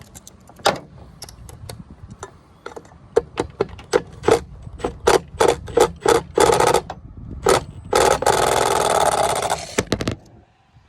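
Sharp metallic clicks and knocks, about three a second for several seconds, from a hand tool being worked on a jammed garbage disposal. Then a dense rattling noise lasts about two seconds and stops.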